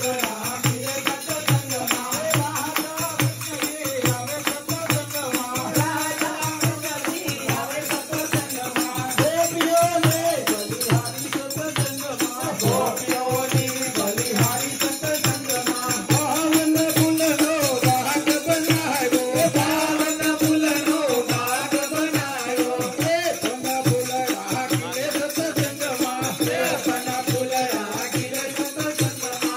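Devotional bhajan sung by a group through a microphone, kept in time by a steady beat of jingling kartal clappers and small hand cymbals.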